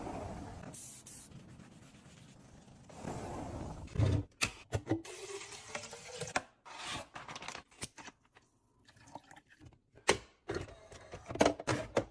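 Liquid poured into a container, with a faint tone that rises as it fills, amid clicks and knocks of containers and lids being handled.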